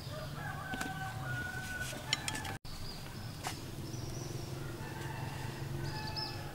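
Chickens in the background, with a rooster crowing and hens clucking, over a steady low hum.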